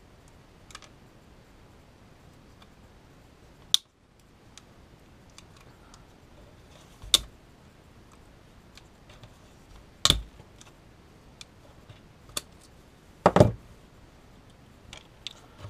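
Pliers clicking and knocking against the small metal parts of an oil pressure sensor as it is pried apart by hand. Scattered sharp clicks every few seconds, the loudest a double knock about two seconds before the end.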